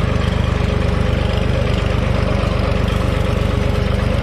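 Farm tractor's diesel engine running steadily with an even, rapid low throb.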